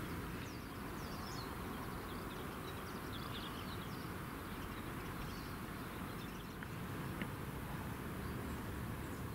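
Faint outdoor ambience: a steady hum of road traffic with small birds chirping faintly throughout.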